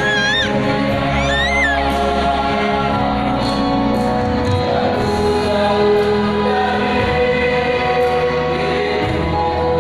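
Mixed choir of men and women singing in harmony, long held chords without a break.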